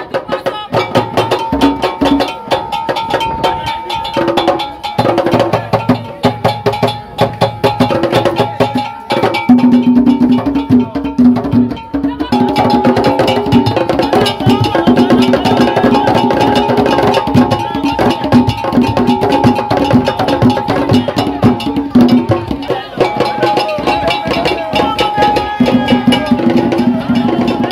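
Traditional Ga drumming: fast, dense beats and wood-block-like knocks with group singing over them.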